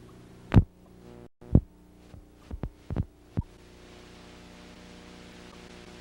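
Steady electrical hum, broken in the first half of the clip by about six loud, short knocks, two of them close together, and a brief moment where the sound drops out.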